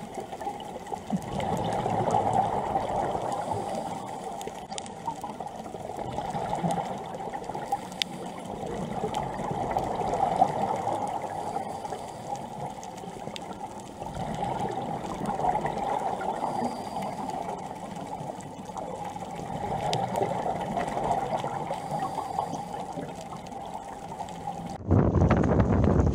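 Muffled underwater ambience picked up by a submerged camera: a watery hiss that swells and fades every few seconds. About a second before the end it cuts to a louder, rougher rushing noise.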